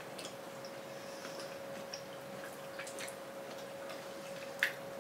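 Quiet eating sounds: a few faint wet clicks and smacks as soft durian flesh is pulled apart and chewed, the sharpest one near the end. A steady faint hum runs underneath.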